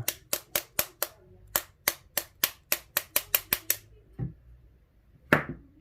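A rapid run of sharp taps, about four or five a second, as the Medeco cylinder is knocked to free a spring stuck inside it, then a couple of duller knocks and one louder knock near the end.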